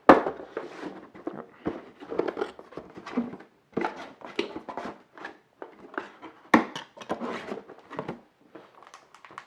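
Motherboard packaging being handled and set aside: irregular rustling and crinkling of the box and its contents, with two sharper knocks, one at the start and one about six and a half seconds in.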